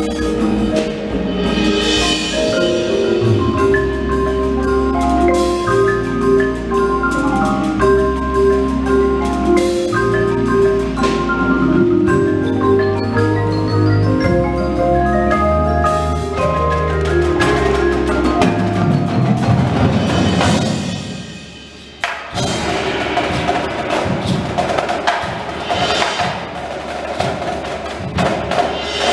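Indoor percussion ensemble playing: mallet keyboards such as marimbas ring out chords over a steady bass line, fading out about 21 seconds in. After a short break, sharp, rapid drum and percussion hits take over.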